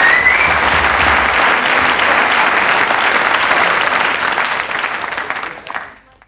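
Studio audience applauding steadily, fading out near the end.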